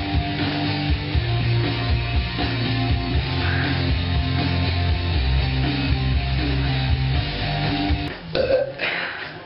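Rock music with guitar and a stepping bass line playing steadily. Near the end a short louder vocal sound breaks in over it.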